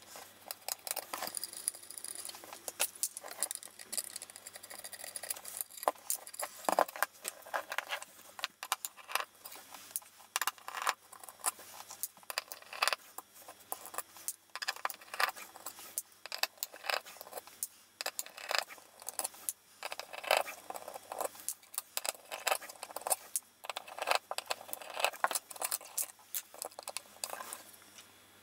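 Small screws being undone with a screwdriver and a circuit board being handled in its aluminium housing: irregular clicks, ticks and light metallic clatter.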